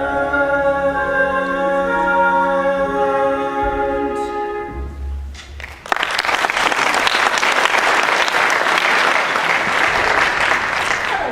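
The musical number's final chord is held with singing and instrumental accompaniment and fades out after about five seconds. Then an audience breaks into applause from about six seconds in, steady to the end.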